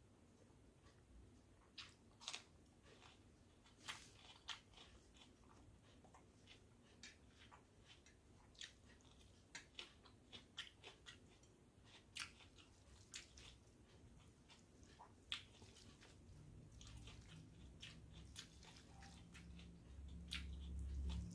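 A person chewing a meal of soaked rice with side dishes, close to the microphone: irregular wet mouth clicks and occasional sharper crunches. A low hum comes up near the end.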